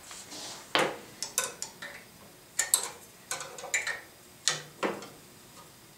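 Metal-on-metal clicks and clinks as a homemade flat 17 mm wrench is fitted onto a jam nut on a steel bolt and worked. The clicks come irregularly, about a dozen in all.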